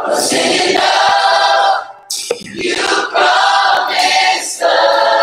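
Worship song sung by a group of voices, in long held phrases with short breaks between them.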